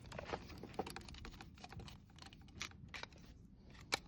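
Faint, irregular light clicks and taps of hands and small tools working on the wiring at an opened socket.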